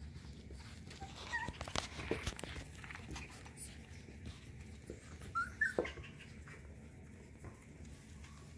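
Cockapoo puppies at play, giving short high whimpers about a second in and again around five and a half seconds in, amid scuffling and tugging on a blanket over a wooden floor.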